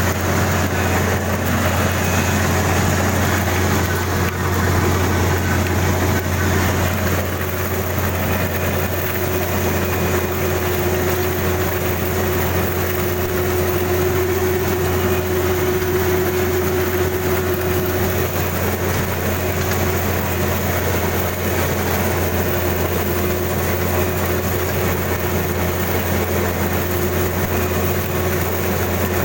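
Kubota DC-35 combine harvester running steadily, a continuous low mechanical hum with a fainter steady whine above it.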